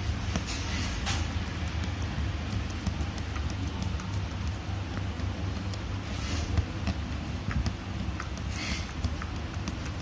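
Hand-embroidery needle and gold thread working through taut fabric: scattered light ticks, with a few short rasps of thread being drawn through. A steady low hum runs underneath.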